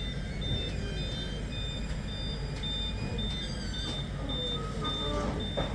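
A high electronic beep repeating steadily about twice a second over a low engine rumble, typical of a work vehicle's warning alarm, such as a reversing beeper.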